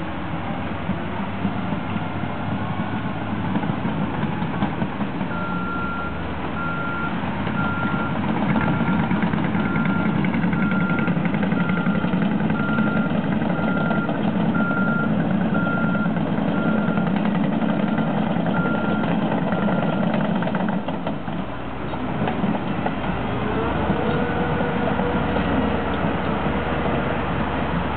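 Heavy diesel construction machinery running, with a reversing alarm beeping steadily, about one beep a second, for some fifteen seconds before it stops.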